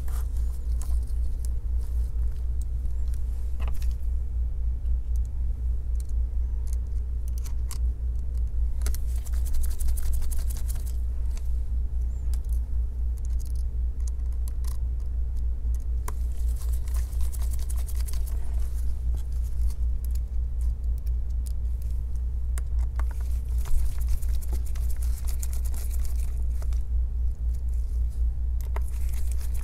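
Scattered small metallic clicks and ticks, bunched in clusters, from a screwdriver working the display hinge screws of a MacBook Pro A1502, over a steady low rumble.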